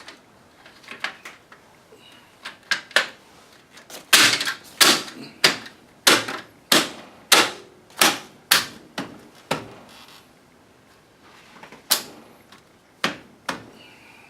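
Sharp knocks and clicks of a wheel trim ring being tapped and snapped onto a wheel. About four seconds in there is a steady run of a dozen strikes, roughly two a second, with scattered lighter clicks around them.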